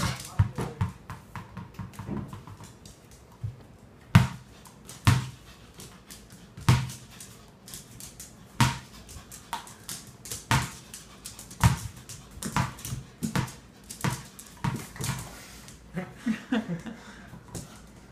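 A small ball bouncing and knocking on a hard floor again and again at uneven intervals, about a second or two apart, as a puppy plays with it.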